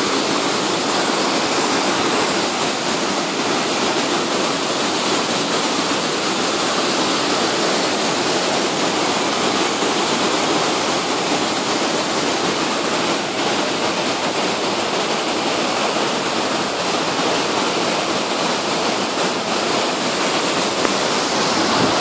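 Waterfall cascading over boulders: a steady, unbroken rush of falling water.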